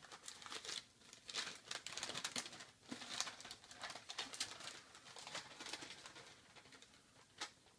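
Newspaper crinkling and rustling as it is unwrapped from around a drinks can: a run of short crackles that dies down about six and a half seconds in.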